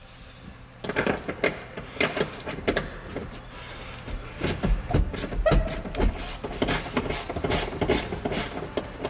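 Irregular metallic clicks and knocks, several a second, as a wrench works the loose mounting bolts of a car's passenger seat. One knock about five seconds in rings briefly.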